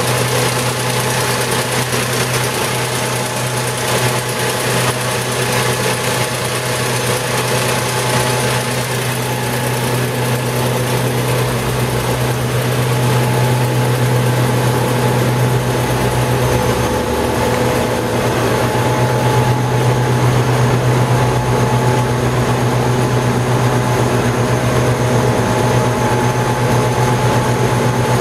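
Stripe Hog line-removal truck running, its engine and high-pressure water-blasting and vacuum machinery giving a steady, heavy drone that grows a little louder about halfway through.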